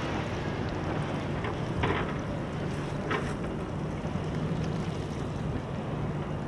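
Wind on the microphone and small waves at the shore over a low steady hum, with two brief sharp sounds about two and three seconds in.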